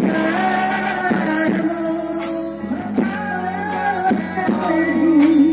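Amplified live music: a woman singing a wavering melody into a microphone, over backing with held bass notes and a steady beat.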